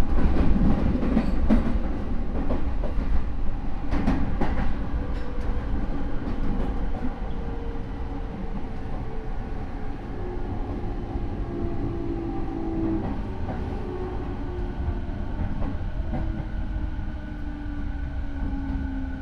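Rinkai Line 70-000 series electric train, a car with Mitsubishi IGBT inverter control and MT73 traction motors, decelerating: the motor and inverter tones fall slowly in pitch as the train brakes, over a steady wheel-and-rail rumble with a few sharp clicks of the wheels over rail joints about four seconds in. The car is one whose motor noise is unusually loud.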